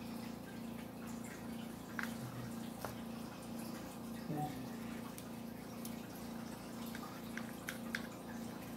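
Low, steady background hum that pulses evenly, with a few faint clicks and ticks scattered through it.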